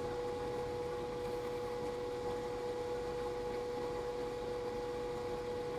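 Steady background hum at one constant pitch over a faint hiss: room tone.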